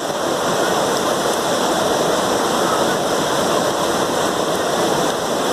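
Steady rushing of water cascading down a waterfall's natural rock slide.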